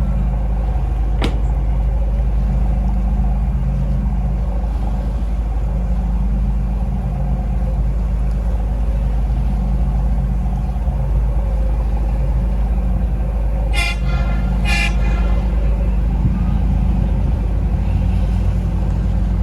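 A boat's engine running with a steady low drone under open-air noise, and a horn giving two short toots about fourteen seconds in.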